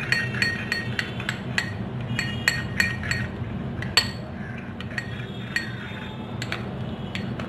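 A spoon clinking against small glass bowls as gram flour is scraped in and stirred into a beetroot-juice face-pack paste. There are quick runs of ringing clinks, one loud clink about four seconds in, and fewer clinks after that.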